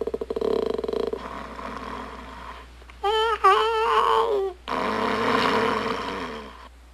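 Comic cartoon snoring from a sleeping lion: a rattling snore on the in-breath that fades, then about three seconds in a warbling, whistled out-breath, followed by another breathy, rasping snore.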